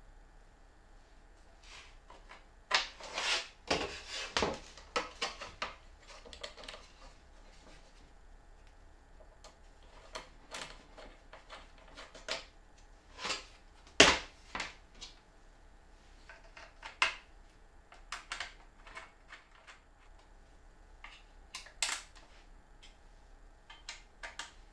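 Handling noises from a thin wooden board and a plastic handle piece on a workbench cutting mat: rustling and clattering as the board is lifted and turned, then scattered light clicks and knocks, with one sharp knock about halfway through as wood meets the bench.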